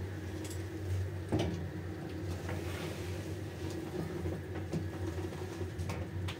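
Passenger elevator car travelling downward between floors: a steady low running hum, with several short clicks and knocks along the way.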